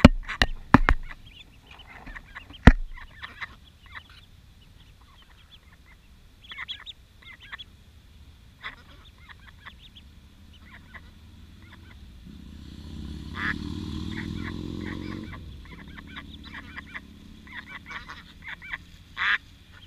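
Ducklings peeping in short high chirps, with a few sharp taps in the first three seconds as they knock against the camera at close range. About twelve seconds in, a louder low sound swells and fades over about three seconds.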